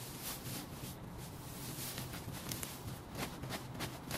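Irregular crackling and rustling of dry pampas grass being pulled and cleared by gloved hands, with a faint low hum underneath.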